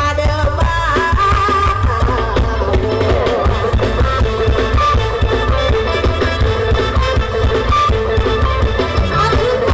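Loud amplified stage-show music through a PA: a heavy, steady bass beat under a wavering melody line.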